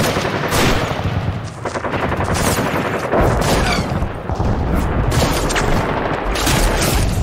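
Battle sound effect: loud rapid machine-gun fire and volleys of gunshots, with heavy low booms of explosions joining about three seconds in.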